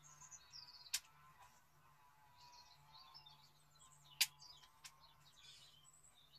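A few faint, sharp clicks of plastic and metal parts being handled as the throttle cable is fitted to a Stihl HT 75 pole pruner's engine, the loudest a little past the middle. Birds chirp faintly in the background.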